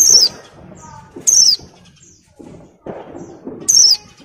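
Caged white-eye (pleci) giving three short, high calls, each falling in pitch, with lower rustling between them. These are the calls of a female in breeding condition (birahi) calling for males.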